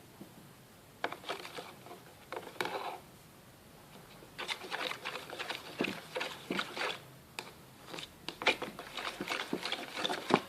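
Glue-and-detergent slime mixture being stirred in a container while it thickens, making quick wet clicks and squelches in three runs with short pauses between.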